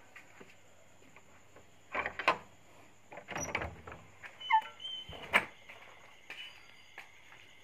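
A wooden door being handled, with several knocks and scrapes and a short creak that drops in pitch near the middle, over a steady chorus of crickets.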